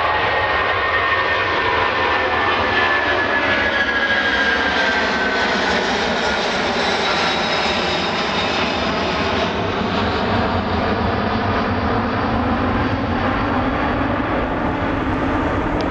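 British Airways Boeing 747-400 climbing out overhead after take-off, its four Rolls-Royce RB211 turbofans making a loud, steady jet rumble. A high fan whine falls in pitch over the first several seconds as the jet passes.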